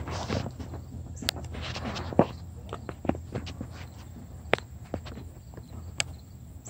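Sharp clicks and knocks, roughly one a second, over a steady low hum.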